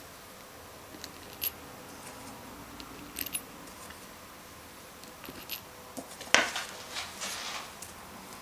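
Small brass screws clicking against a metal lid and gland insert as they are handled and set into their holes: scattered light clicks, the sharpest about two-thirds of the way through.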